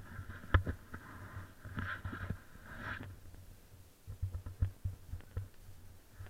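Skis sliding and scraping over snow for about the first three seconds, then stopping, with dull knocks and bumps on the camera throughout; the sharpest knock comes about half a second in.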